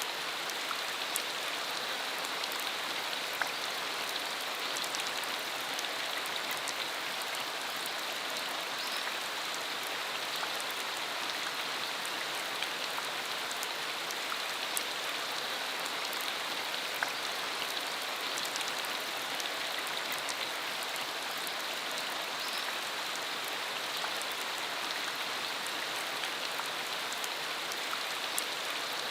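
Steady rain falling, an even hiss with scattered close drop ticks.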